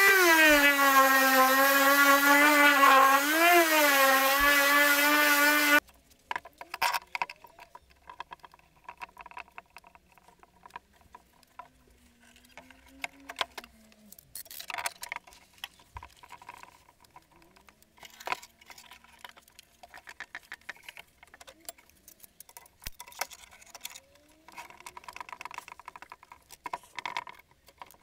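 Electric detail sander running with a steady whine that wavers slightly in pitch, cut off abruptly about six seconds in. After that, scattered light clicks and knocks as screw bar clamps and glued wooden rings are handled and tightened.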